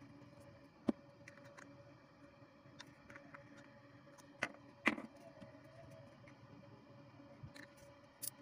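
Light clicks and knocks as a three-cell 18650 lithium-ion battery pack with its protection board is handled and fitted into a plastic drill-battery housing. Sharper taps come about a second in, twice around four to five seconds, and near the end, over a faint steady hum.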